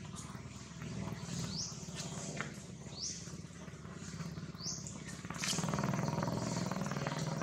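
A bird repeating a short, high, rising chirp about every second and a half, over a low steady hum that grows louder about five and a half seconds in.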